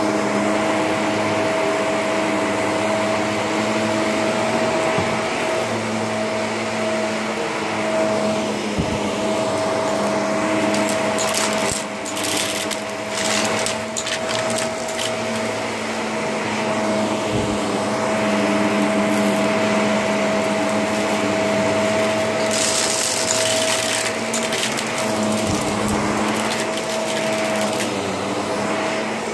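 Shark vacuum cleaner running steadily while vacuuming, a constant motor hum and hiss with a few short bursts of higher hiss.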